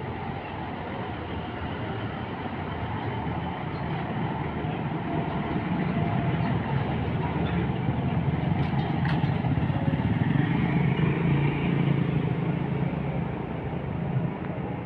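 Large intercity bus's diesel engine running as the bus pulls past close by, its low rumble growing louder to a peak about ten seconds in, then easing off; a motor scooter passes too.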